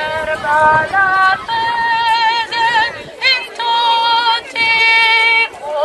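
A woman's voice singing a hymn, amplified through a horn loudspeaker, with long held notes and wide vibrato in short phrases.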